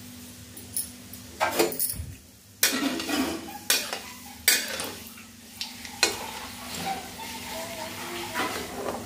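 Hot oil sizzling in a metal kadhai, with a metal spoon and spatula scraping and knocking against the pan about five times.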